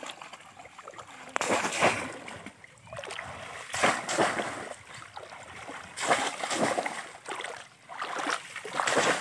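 Muddy shallow water splashing and sloshing in repeated surges every second or two, as conical bamboo fish traps are thrust down into it and legs wade through.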